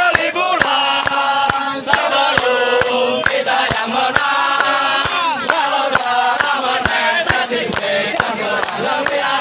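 A crowd of men chanting in unison to steady hand clapping, about two claps a second.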